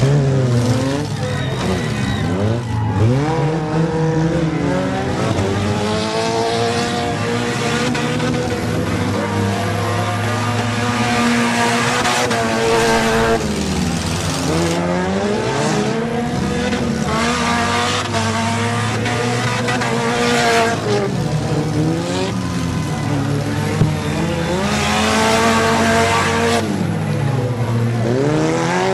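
Several demolition derby cars' engines running at once, each revving up and down over the others.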